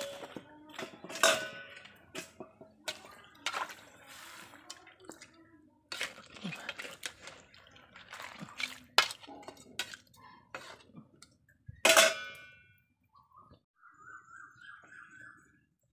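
Metal cookware clanking: a steel wok and its aluminium lid knocked and handled, a string of sharp clinks and clanks with the loudest one late on as the lid goes on. A faint wavering whistle follows near the end.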